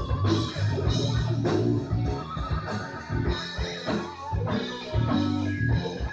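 Live rock band playing: electric guitar over bass and a steady drum beat.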